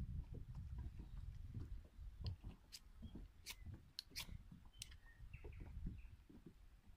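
Scattered light clicks and small knocks of camp gear being handled, a knife cutting and pieces being set into a small camp kettle stove, over a low rumble of wind on the microphone.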